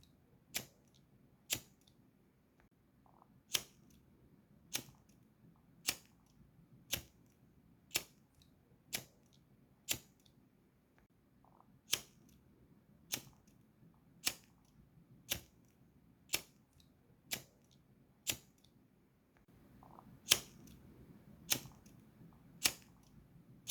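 Gas lighter being clicked over and over, one sharp click about every second. Each click is the lighter's ignition being struck, with a faint low rush under the last few clicks.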